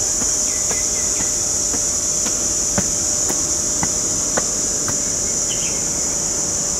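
A chorus of insects shrilling in a steady, loud, high-pitched drone. A few short chirps come in early and near the end, and scattered sharp clicks sound over it.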